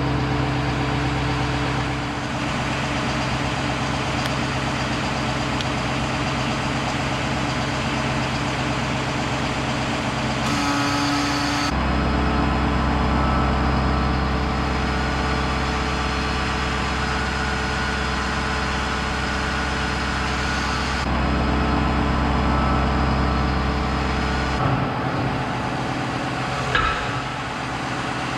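Truck engine and the hydraulic drive of a Palfinger PK7.001 SLD knuckleboom crane running steadily while the crane is operated. The hum changes abruptly several times.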